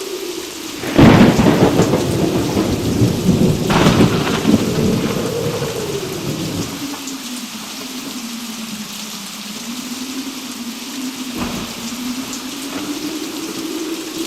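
Thunder: a sudden loud thunderclap about a second in, a second crack soon after, then rumbling that dies away over a few seconds, and a fainter crack later. Steady heavy rain throughout.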